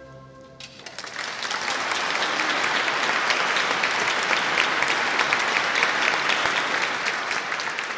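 The orchestra's final chord dies away, and just under a second in an audience breaks into steady applause.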